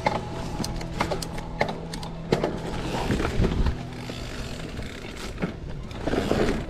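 A bike ridden over rough off-road ground, with frequent knocks and rattles over a steady low tone.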